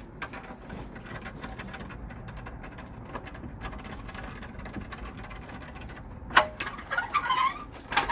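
Hand tools working on the exhaust under the car: a fast run of light clicks and rattles, then a sharp metallic clank about six seconds in. Brief voices follow near the end.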